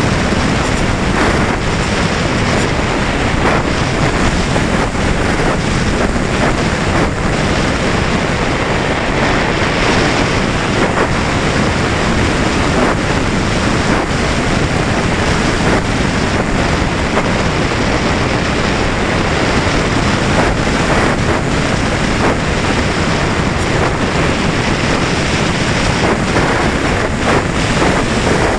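Steady rushing wind noise from airflow buffeting an onboard camera's microphone on a Valenta Volcano RC sailplane in flight, with no motor tone heard.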